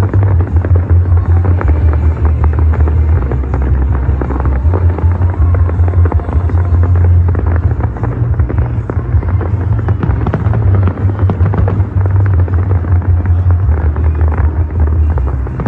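Fireworks display: dense crackling of bursting shells over a continuous low rumble, with music playing underneath.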